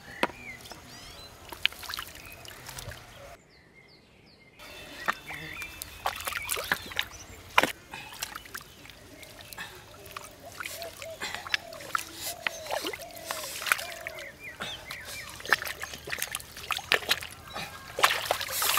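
Hands groping in shallow muddy water, with frequent small splashes, slaps and squelches as they dig through mud for fish. The sound breaks off for about a second near the start.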